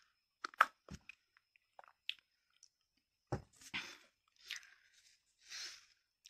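Mouth sounds of someone sipping a fizzy cola-and-sparkling-water mix from a paper cup and tasting it: scattered soft clicks, gulps and lip smacks, with a few short breaths.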